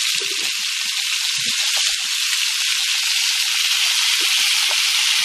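Green mango pieces frying in a metal wok over a gas flame: a steady, even sizzling hiss.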